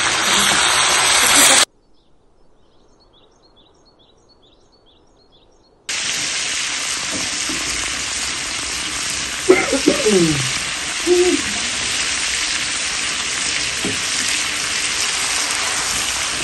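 Food sizzling as it fries in a karahi pan for Shinwari karahi, a steady loud sizzle. It drops out about two seconds in for some four seconds of near quiet with faint repeated chirps, then resumes.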